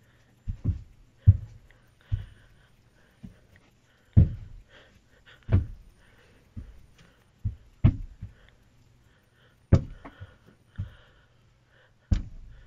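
About a dozen heavy knocks on a door, unevenly spaced, some in quick pairs, over a faint steady low hum.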